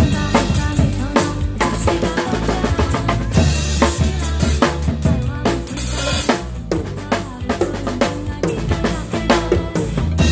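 Acoustic drum kit played live, with steady bass drum, snare and rimshot hits, over a recorded pop backing track. Cymbal crashes ring out about three and six seconds in.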